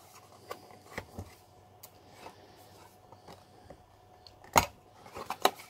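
Small plastic clicks and taps from hands working a GoPro Hero7 Black in its plastic frame mount, scattered and irregular, with the loudest, a sharp snap, about four and a half seconds in and another just before the end.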